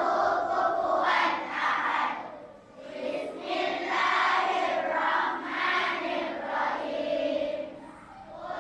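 A large group of children chanting together in unison, with short pauses between phrases about two and a half seconds in and near the end.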